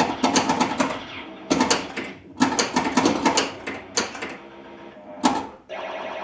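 1980 Williams Firepower pinball machine in play: several quick clusters of sharp mechanical clacks from its flippers, bumpers and solenoids. A steady electronic sound effect from the machine starts near the end.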